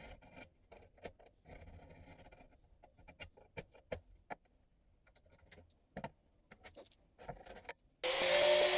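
Steel scribe scratching around the edge of a clamped sheet-steel repair piece, with scattered light clicks and taps of metal on metal. Music comes in much louder near the end.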